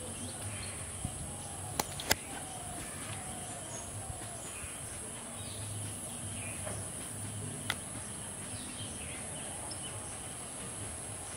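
Steady high-pitched drone of insects, with faint bird chirps and a few sharp clicks: two close together about two seconds in and one near eight seconds.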